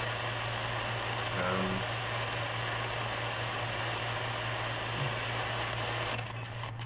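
Shortwave AM static from the Sangean ATS-909X2's speaker, tuned to 7375 kHz with no station coming in: a steady hiss over a low hum. About six seconds in the hiss drops as the tuning dial is turned to a new frequency.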